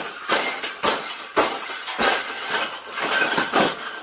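Irregular metallic clanking and rattling, about two sharp knocks a second, as a wire cage is handled or shaken.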